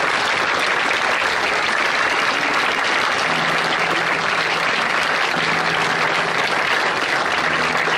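Sustained applause from a crowd, a dense, even patter with no break. From about three seconds in, faint low held notes sound underneath.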